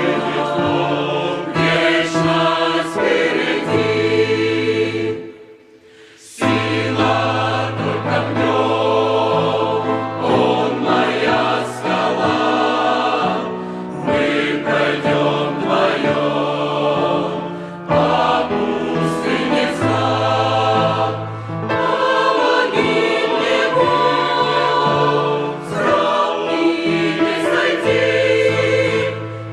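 Choir singing with music, over long held bass notes; the sound drops away briefly about five seconds in, then comes back.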